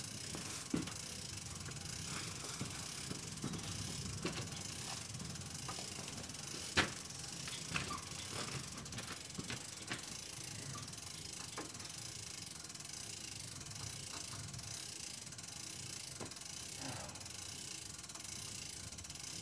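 Hand-cranked winch of a material lift, its ratchet pawl clicking steadily as the handle is wound to hoist a load, with a few sharper clicks along the way.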